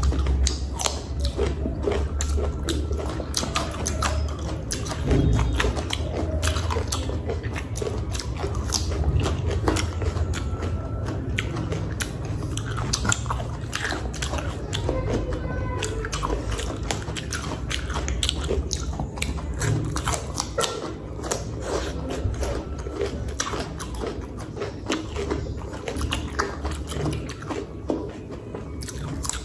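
Raw cucumber being bitten and chewed quickly, a dense run of crisp crunches with no pause.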